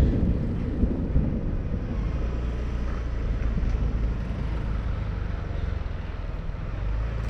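Street traffic of motorbikes with engines running and a steady low road rumble.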